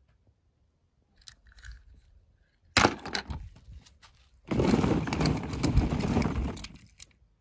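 A single sharp knock, then a dense rattling clatter of hard objects lasting about two and a half seconds.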